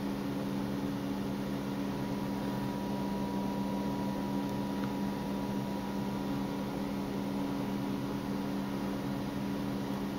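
Steady mechanical hum over an even hiss, its pitch unchanging.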